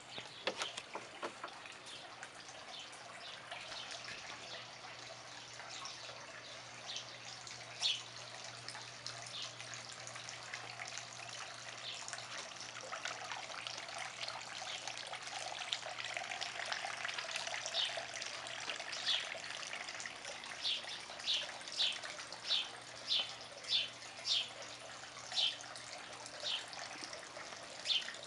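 Tiered garden fountain trickling and splashing steadily. In the last third a bird gives a string of short, high chirps, one or two a second.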